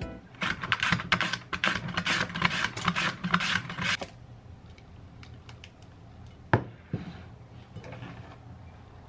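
Korean radish being shredded on a plastic julienne mandoline slicer: quick rasping strokes, about four a second, for the first four seconds. Then softer handling of the shreds on a wooden cutting board, with a sharp knock about two and a half seconds later.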